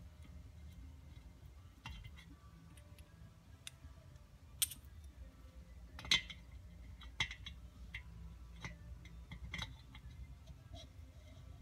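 Scattered light metallic clicks and clinks as Norton Commando tappets and small engine parts are handled and fitted into the cylinder block, with a handful of sharper knocks spread through, over a steady low hum.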